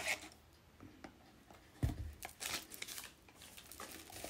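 Cardboard box flaps being opened and honeycomb kraft-paper packing wrap rustling and crinkling as it is pulled out, with a soft low thump about two seconds in.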